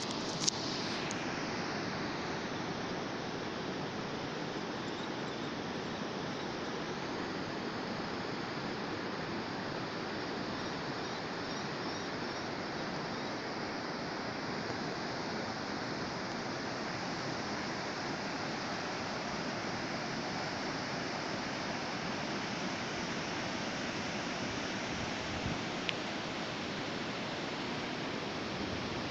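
Sea surf breaking and washing on the shore in a steady, continuous rush, with a brief click about half a second in.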